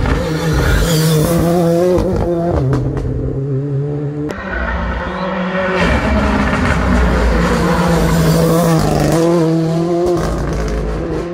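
Two rally cars, one after the other, driven hard through a tarmac hairpin: engines revving up and down through the gears, with a few sharp cracks about two and a half seconds in. The sound cuts abruptly a little after four seconds, then a second car comes in and accelerates away.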